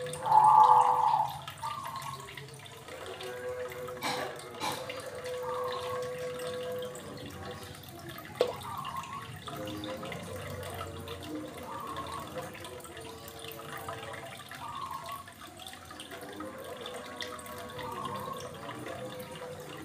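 Aquarium water trickling and dripping, with short gurgling splashes every couple of seconds and a louder one about half a second in.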